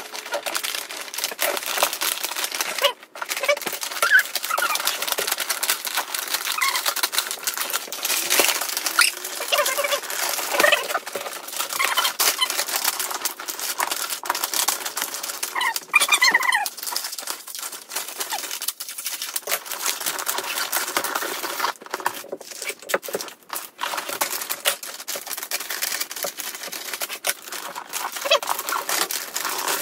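Christmas wrapping paper rustling and crinkling as it is folded and pressed around a gift box, with a few short high squeaks among the crackle.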